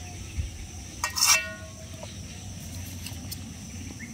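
A single clink about a second in, rings briefly, like metal striking the steel bowl that holds the cleaned catfish. Under it there is a steady high insect drone.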